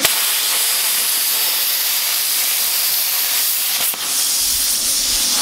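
Hand-held plasma cutter at 40 amps cutting through a rusty steel flat bar at a quick travel speed: a loud, steady hiss of the arc and air jet that starts abruptly, with one brief dip about four seconds in.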